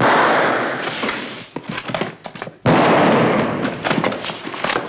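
Film soundtrack of a brawl: a loud gunshot-like bang with a long decaying crash at the start, a second one about two and a half seconds in, and scattered sharp knocks and clatter between and after them.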